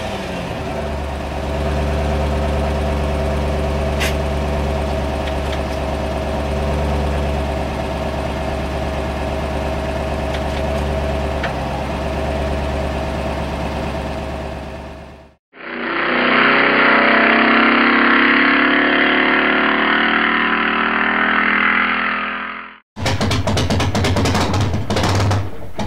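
Car engines running: a steady low idle for about fifteen seconds, then after a sudden cut a louder, rougher engine sound, and a second cut near the end to another choppy engine sound.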